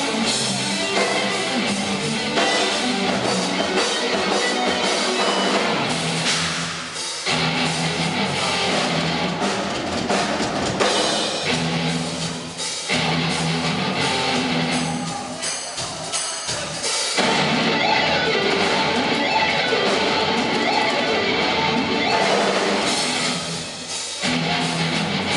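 Instrumental heavy metal played live by a band: electric guitar over a drum kit.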